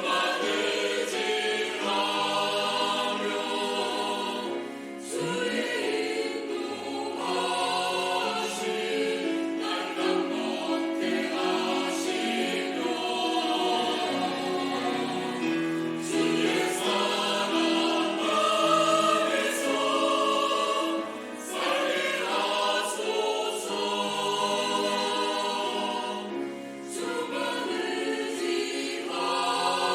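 Church choir singing a sacred anthem in sustained chords, with short breaks between phrases.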